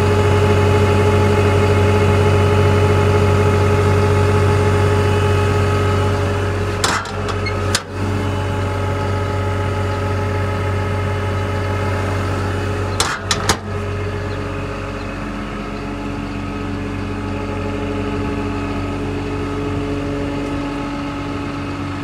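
Diesel engine of a CAT M316D wheeled excavator idling steadily, with two brief breaks about seven and thirteen seconds in.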